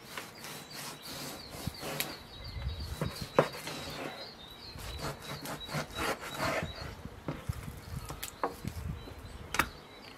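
Kitchen knife cutting through a large piece of raw meat, the blade slicing and scraping and tapping now and then on a wooden cutting board.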